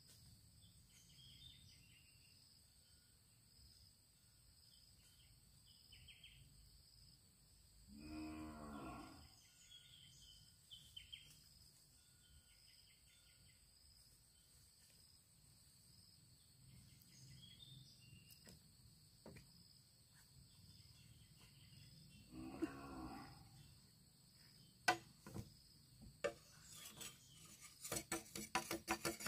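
An animal calls twice, each call about a second and a half long and some fourteen seconds apart, over a steady high drone of insects. Near the end, fast repeated scraping strokes begin.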